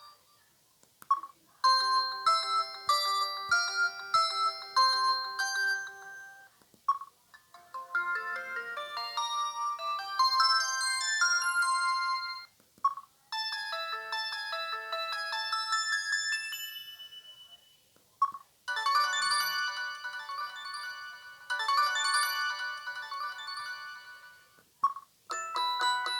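Samsung SGH-M150 mobile phone playing its polyphonic ringtones one after another: about five short melodies, each a few seconds long, with a brief pause and a short beep before each new one.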